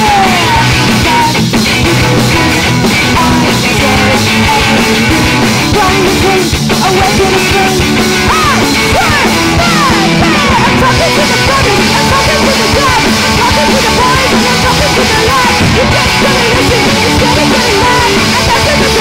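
Punk rock band playing live, loud and steady: electric guitars, bass guitar and drum kit with cymbals.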